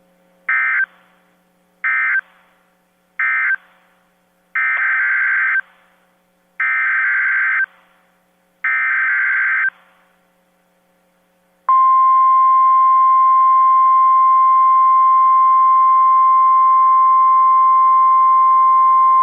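NOAA Weather Radio EAS/SAME digital data bursts: three short buzzy bursts that end the previous alert, then three longer bursts that carry the header of the next alert. About 12 seconds in, the steady 1050 Hz warning alarm tone starts and holds, with static behind it.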